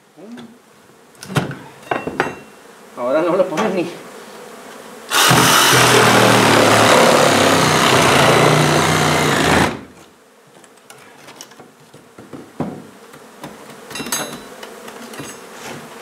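A cordless power tool runs loudly in one burst of about four and a half seconds, starting and stopping abruptly. Around it are a few sharp hammer knocks on old floorboards and honey bees buzzing.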